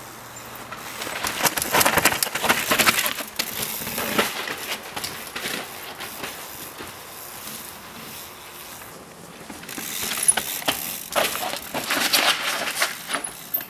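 Mountain bike coming down a rocky, rooty dirt descent: tyres crunching over dirt and stones, with the bike clattering over the bumps. It comes in two loud stretches of crackling and knocks, the first about a second in and the second near the end.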